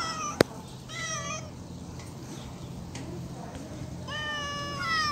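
Domestic cat meowing several times: a short meow at the start, another about a second in, and a long drawn-out meow near the end that runs straight into one more. A single sharp click about half a second in is the loudest sound.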